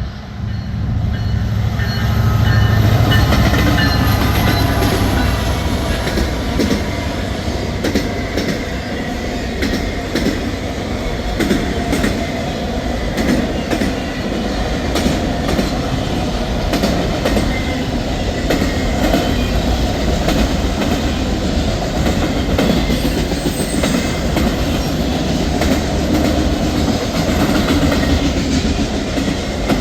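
A freight train passing close by. A diesel locomotive's rumble builds over the first few seconds, then the rolling cars keep up a steady wheel noise with repeated clicking over the rail joints.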